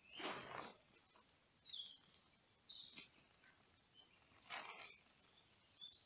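Two short rustles of a nylon poncho and quilted liner being handled and folded over, about half a second in and again about four and a half seconds in, with faint bird chirps throughout.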